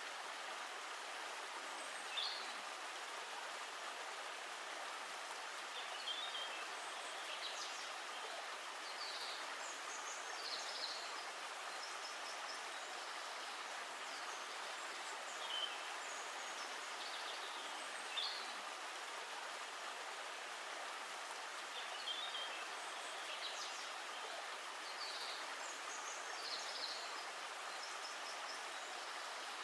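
Steady rush of flowing water, with short high bird chirps scattered over it every second or two.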